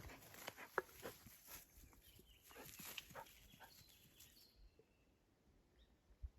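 Near silence, with a few faint scattered clicks and rustles over a light hiss in the first few seconds, then near quiet.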